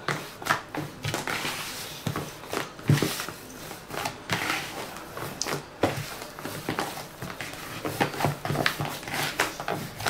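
Hands kneading crumbly cookie dough in a plastic bowl: irregular squishing and crumbling, with soft knocks and scrapes throughout.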